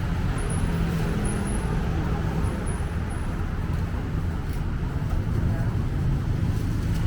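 Steady city road traffic rumble, with faint voices in the background.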